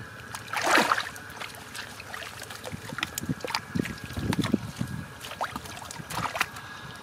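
Gloved hands sloshing and splashing in shallow muddy water while groping through the mud for eels, in irregular small splashes with a louder splash about a second in.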